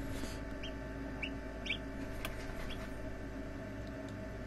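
Newly hatched chicks peeping: several short, high peeps about half a second apart, over a steady hum.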